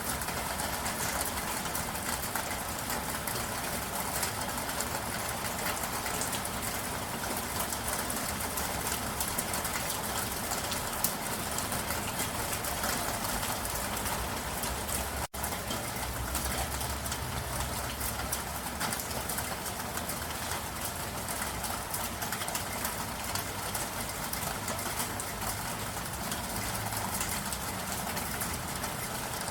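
Steady rain: a dense, even hiss full of separate drop patters, cutting out for an instant about halfway through.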